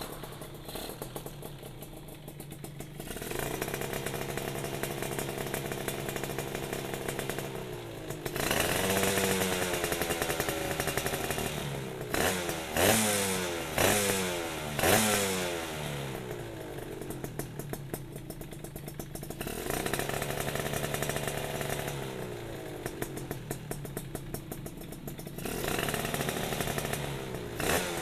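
Suzuki Satria two-stroke single-cylinder motorcycle engine with an aftermarket CMS ABRT20 underbelly exhaust, revved while standing. It idles, holds raised revs for a few seconds, then is blipped sharply about three times, each blip rising fast and falling back. It drops to idle, holds revs again, and is blipped twice more near the end.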